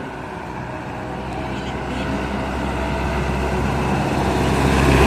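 A large motor vehicle's engine running steadily, growing louder as it approaches.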